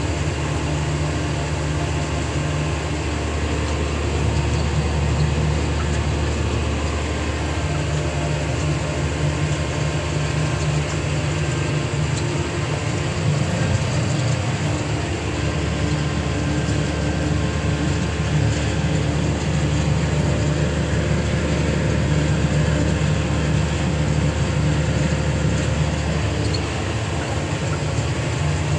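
John Deere 7820 tractor's six-cylinder diesel engine running steadily under load, heard from inside the cab, as it pulls a Dalbo Powerroll 1230 roller over stubble. It makes an unbroken low drone with a constant rumble over it.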